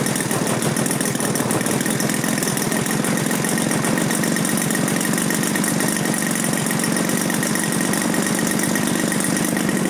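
Engine of a 40%-scale Yak-54 model aircraft, with its propeller, idling steadily on the ground during an engine test before its first flight.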